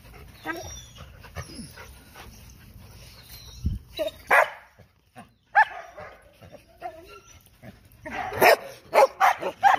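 Dogs barking: a few scattered barks, the loudest about four seconds in, then a quick run of barks near the end.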